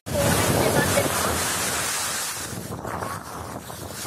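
Loud, steady rushing of a large waterfall close by, mixed with wind buffeting the microphone; it starts abruptly.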